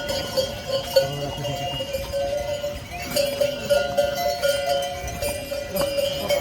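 Neck bells on pack ponies jingling continuously, several bells ringing at different pitches with an uneven shaking rhythm.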